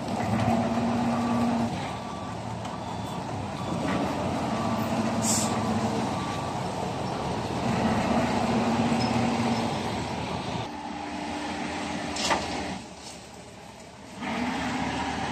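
Ten-wheeler dump truck's diesel engine running under load to drive the hydraulic hoist as the loaded bed tips up. A short hiss of air about five seconds in and another about twelve seconds in, then the engine drops quieter for a second or so before picking up again as the soil pours out.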